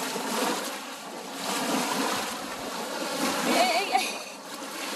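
Small wind-driven lake waves lapping and splashing in the shallows around wading legs, with wind noise over it. A brief high, wavering cry rises about three and a half seconds in.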